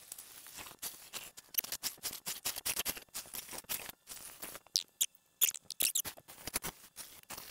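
Turning tool cutting across the face of a laurel oak blank spinning on a wood lathe, flattening its back side: irregular scraping and crackling as shavings come off, with a few brief high squeaks about five to six seconds in.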